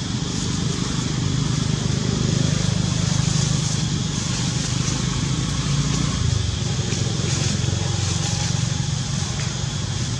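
A steady low engine hum, such as a motor vehicle running nearby, that shifts slightly in pitch about six seconds in, over a constant high hiss.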